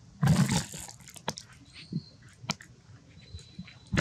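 Baby macaque crying out for its mother: one loud harsh cry just after the start, then a few short sharp calls, with another cry starting at the very end.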